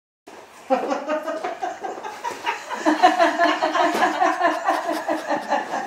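Several people laughing and chattering together, starting abruptly about a quarter second in.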